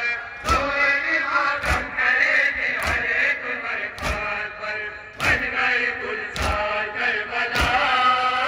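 A mourning chant (noha) sung in a steady rhythm, with a sharp slap about every second and a bit in time with it: mourners beating their chests in matam.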